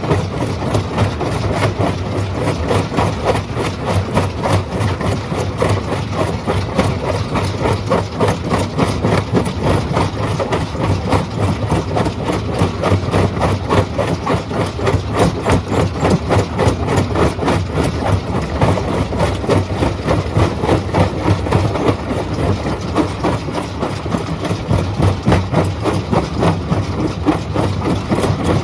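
Stone crushing machine running and crushing rock: a steady low drone under a continuous, rapid clatter of stone.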